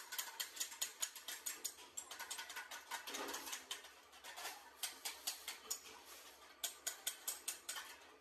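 Pedestal spot-welding machine firing a rapid string of sharp snaps, several a second in clusters with short pauses, as a bracket is welded onto a steel motorcycle mudguard.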